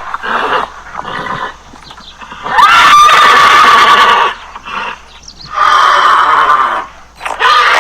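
Horse neighing: a series of loud whinnies, the longest starting about two and a half seconds in with a rising pitch and then holding steady for nearly two seconds.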